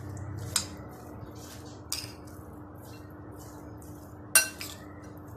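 Metal spoon stirring a moist mashed-potato and vegetable mixture in a glass bowl: soft repeated squishing scrapes, with three sharp clinks of the spoon against the glass, the loudest about four seconds in.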